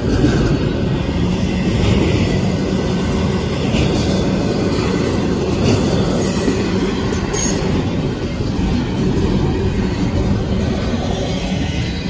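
Loaded double-stack intermodal well cars of a Kansas City Southern de Mexico freight train rolling past close by: a steady, loud rumble of wheels on rail, with a few brief high wheel squeals about halfway through.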